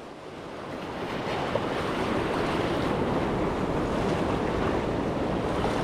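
Surf washing steadily against jetty rocks, with wind buffeting the microphone. The sound fades in over the first couple of seconds.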